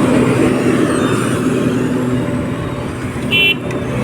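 Heavy road-construction machinery engines running steadily in a dense low rumble, with one short high-pitched beep about three seconds in.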